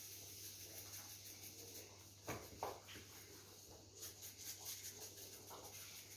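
Very quiet handling sounds as a spice shaker is shaken over raw T-bone steaks in a roasting tray: faint rustles, and two soft knocks a little over two seconds in, over a low steady hum.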